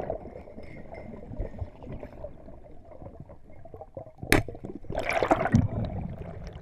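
Muffled underwater water noise picked up by a freediver's camera. About four seconds in comes a single sharp snap as a wooden band-powered speargun fires, followed by a second or so of rushing, churning water.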